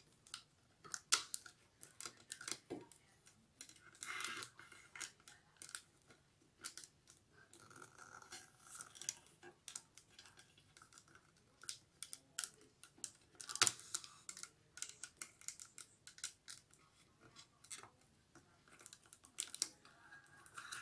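Rolled newspaper tubes being woven around a can: scattered light ticks and clicks with short papery rustles as the tubes are bent, pushed over each other and rubbed against the can. One sharper click comes just past the middle.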